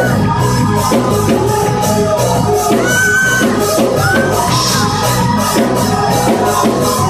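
Live gospel praise-break music: a drum kit keeps a steady driving beat while voices shout and sing over it.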